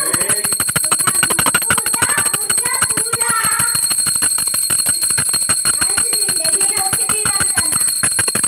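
Small brass puja hand bell rung rapidly and continuously, many strikes a second over a steady high ring, as used during aarti.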